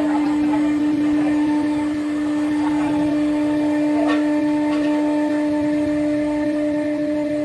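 CNC router spindle running with a steady pitched whine while its bit cuts acrylic sheet, with a short crackle of cutting about four seconds in.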